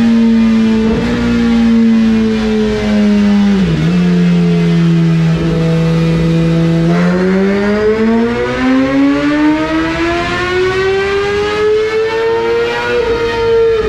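Suzuki GSX-R1000R inline-four sport bike engine running on a chassis dyno. It holds fairly steady revs for several seconds, with a brief dip about four seconds in. Then it makes a dyno pull, the revs climbing steadily for about six seconds, and they start to drop right at the end.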